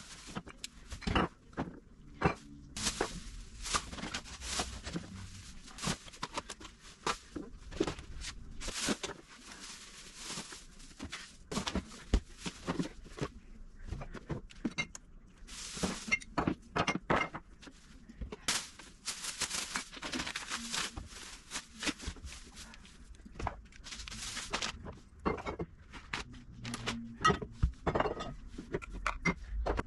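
Glass jars, bottles and cans being set down and shifted on a plastic lazy susan shelf: many irregular knocks and clicks with short stretches of scraping between them.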